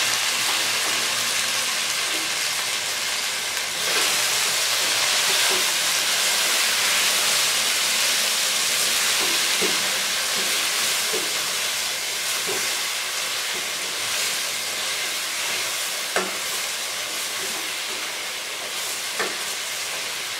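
Chicken, onion, tomato and spice masala sizzling in oil in a nonstick pan while being stirred and scraped with a spatula at the bhuna (frying-down) stage; the sizzle slowly softens, with a few sharp taps of the spatula against the pan.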